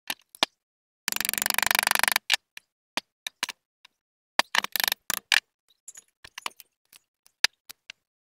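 Metal clicks and knocks from a car alternator's housing being handled and fitted back together, with a rapid rattling clatter lasting about a second near the start and scattered single clicks after it.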